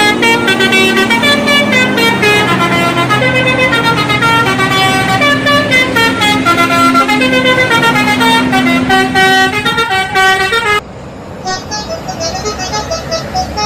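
Bus telolet horn, a multi-tone air horn, playing a melody of held notes that step up and down in pitch. About 11 seconds in it cuts to a quieter melody of quicker, higher notes.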